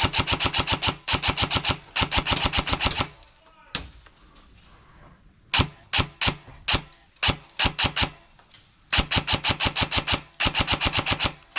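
Airsoft rifles firing at close range: fully automatic bursts of about ten shots a second, a pause with a few single shots in the middle, then longer sustained bursts near the end.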